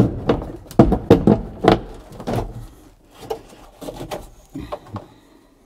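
Defroster duct being worked loose and pulled off a truck's heater box: a run of knocks, clatters and scrapes, busiest in the first two and a half seconds and sparser after.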